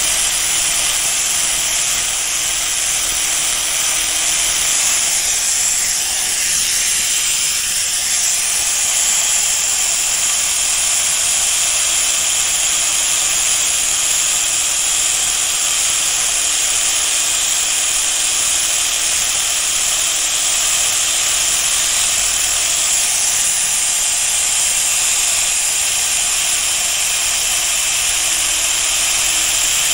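Power sanding tool running steadily as it abrades the steel blade of Heinisch No. 12 tailor's shears, a continuous high hiss, resurfacing the blade to take out pitting and discolouration.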